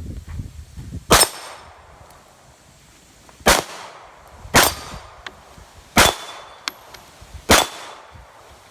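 Five slow, deliberate pistol shots from a Glock 23 firing 9mm through a threaded .40-to-9mm conversion barrel, spaced about one to two and a half seconds apart, each followed by a short ring.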